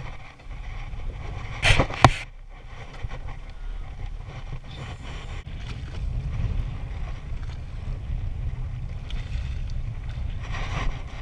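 Wind buffeting the microphone and water moving against a small boat's hull on open sea, a steady low rumble. Two sharp knocks come close together about two seconds in.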